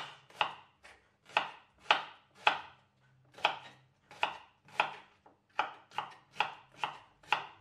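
Kitchen knife slicing an onion on a wooden cutting board: regular chopping strokes, about two a second, each ending in a sharp knock on the board, with a brief pause about three seconds in.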